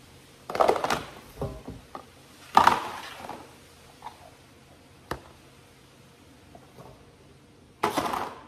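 Plastic food containers being handled on a countertop: three short clattering rustles and a single sharp knock about five seconds in.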